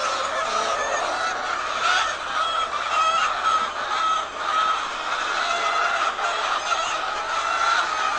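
A large flock of hens clucking and calling all at once, a dense continuous chatter of many overlapping voices.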